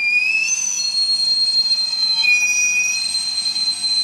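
Camote (sweet potato) vendor's cart steam whistle: it starts suddenly and rises slightly in pitch, then holds a loud, shrill note of several high tones sounding together.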